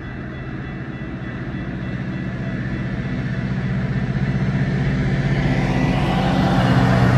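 GO Transit MP40PH-3C diesel locomotive approaching the level crossing, its low engine hum growing steadily louder as it nears.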